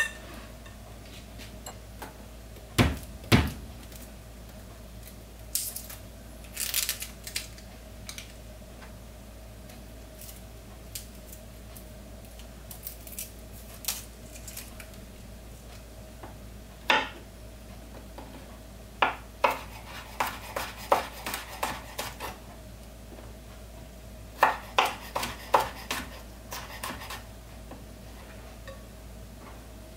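Kitchen knife tapping on a wooden cutting board in quick runs as garlic cloves are sliced, amid scattered clicks and knocks of handling; two heavier thumps come about three seconds in.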